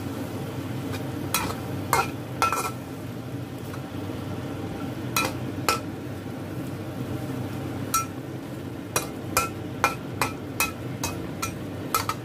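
Metal spoon clinking and scraping against a wok while vegetables are stirred into a curry, in irregular sharp clinks that come faster after about eight seconds, over a steady low hum.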